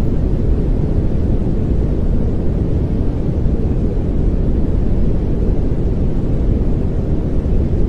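Steady pink noise: a constant, even rush with most of its weight in the low end and no changes or events.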